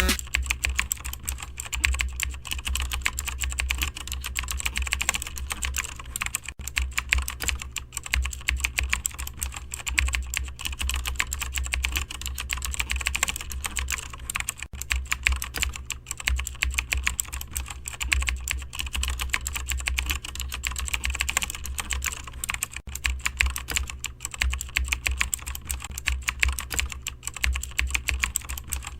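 Fast, continuous typing on a computer keyboard, dense irregular key clicks, over a steady low hum.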